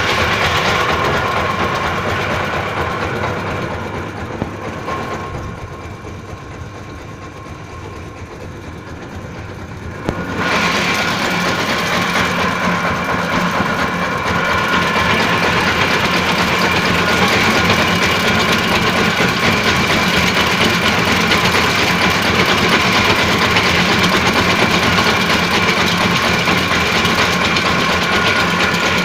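Tofu-making machine driven by two large electric motors, running steadily with a constant mechanical whine and rattle. It drops quieter for a few seconds and comes back up suddenly about ten seconds in.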